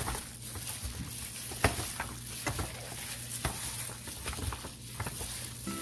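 Wet squelching and slapping of sliced raw beef being hand-mixed with marinade in a disposable aluminium foil pan, with irregular clicks and crinkles from the foil and the plastic glove.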